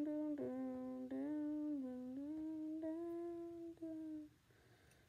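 A child humming one long note by mouth as a play sound effect. The pitch steps slightly up and down with short breaks and stops about four seconds in.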